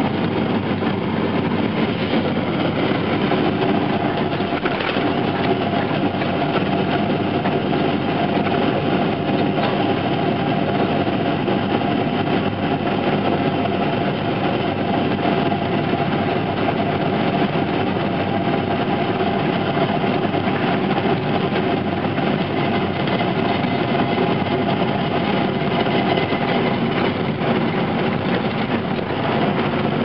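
Steady engine and road noise of a vehicle driving, heard from inside its cab, with a faint steady hum under it.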